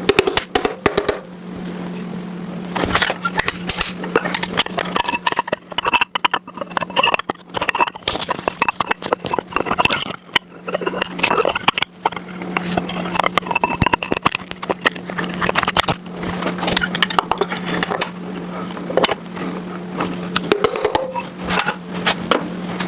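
Metal hand tools and engine parts clinking, tapping and scraping in irregular short knocks, over a steady low hum.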